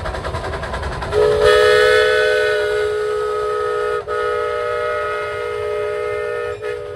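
Ridable-scale live steam locomotive running past with a rhythmic beat, then about a second in its chime whistle sounds one long blast of several notes at once. The blast breaks briefly near the middle and again near the end.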